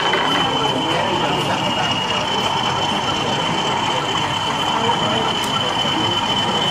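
OO gauge model Class 37 diesel locomotive running slowly, a steady high whine, over a constant murmur of crowd chatter.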